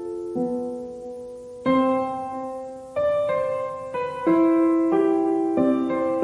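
Slow, gentle background piano music: single notes and chords struck about once a second, each one ringing and fading before the next.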